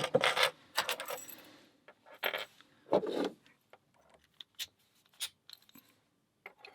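A small metal lock being handled, clinking and rattling in a few short bursts in the first half, then only light ticks.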